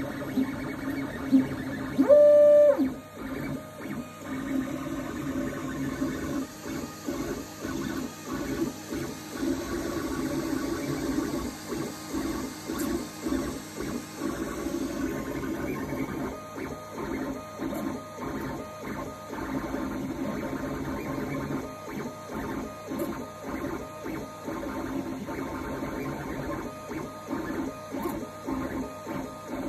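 Geeetech A20M 3D printer at work: its stepper motors whine and buzz through a long series of short, quick moves that keep changing pitch. A brief loud beep sounds about two seconds in.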